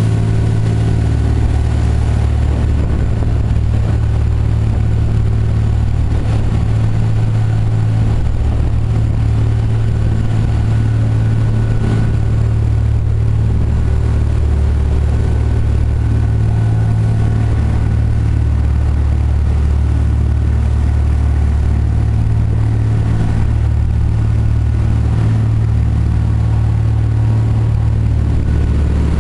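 Boat's engines running steadily at speed, a constant low drone, with water rushing and spraying along the hull.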